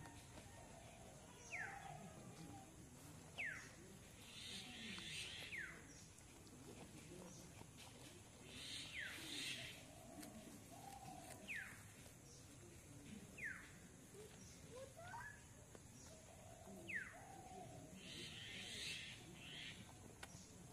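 A bird in the trees, faint, repeating a short, sharp falling whistle every two to three seconds. Between the calls come brief rustles of leaves as a goat pulls at cut leafy branches to eat them.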